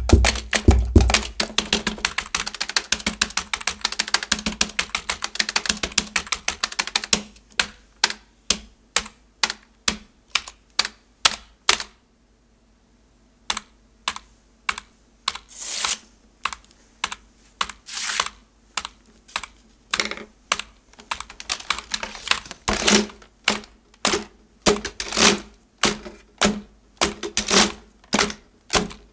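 Computer keyboards and a mouse played as a percussion groove. Fast, dense key-clatter for about the first seven seconds, then a steady beat of single clicks and a short pause about twelve seconds in. The beat then returns with a few longer noisy strokes and heavier knocks toward the end.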